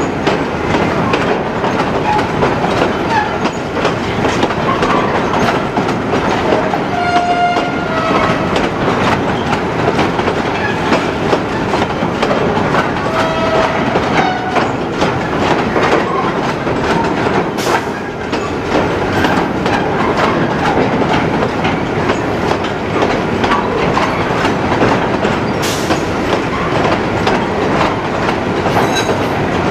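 Freight train of container flat wagons rolling past at close range: steady rumble and clatter of the wagon wheels on the track, with short wheel squeals about seven and thirteen seconds in.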